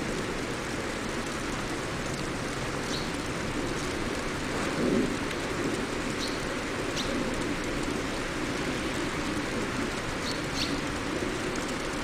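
Steady hiss of rain, with a few short, high bird chirps scattered through it. A low rumble swells briefly about five seconds in.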